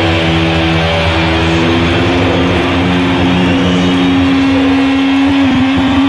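Live rock band music: loud, sustained electric guitar and bass notes held out, with the main held note bending in pitch near the end.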